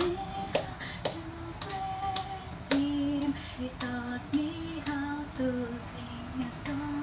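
A woman singing a slow melody without words, holding long notes that step up and down, with a few sharp clicks.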